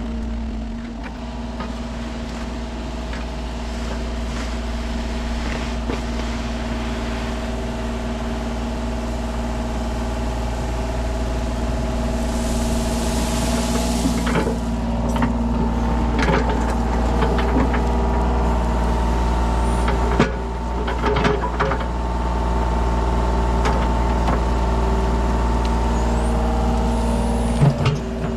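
Diesel engine of a Kubota mini excavator running steadily under hydraulic load. A hiss lasts about two seconds around the middle, followed by scattered knocks.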